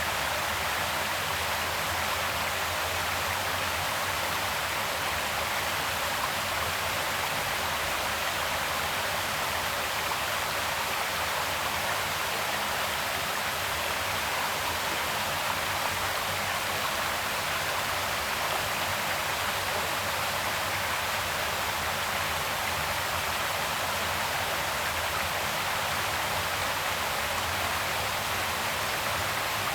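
Creek water flowing: a steady, even rushing that does not change.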